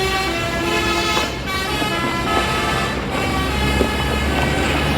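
A Prabunata Jaya bus's telolet horn, a multi-tone musical air horn, playing a short tune of stepped notes for about three seconds, with fainter notes after. The bus's engine runs underneath.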